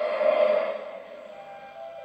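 Music from a videotape's soundtrack during VHS playback: held tones that fade away over the first second, followed by a quieter held note.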